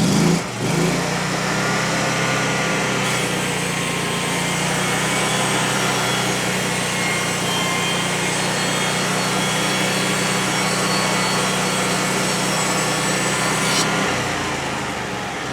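Frontier OS35 portable bandsaw mill running steadily, its engine under load as the band blade cuts a thin slice, about half an inch, off a log to get past rot. There is a short, louder sound right at the start, and the engine drone drops away near the end.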